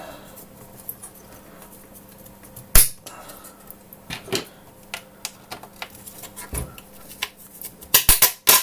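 Handling clatter of a computer motherboard and its small mounting screws and standoffs: light clicks, one sharp knock about three seconds in, and a burst of metallic knocks near the end as the board is lifted and turned over.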